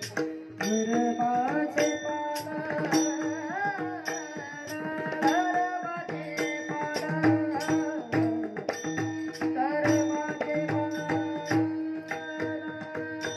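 A boy's voice sings a gliding devotional Warkari bhajan melody, entering about half a second in, over a steady drone. Small brass hand cymbals (taal) strike in an even beat, and a drum plays low strokes beneath.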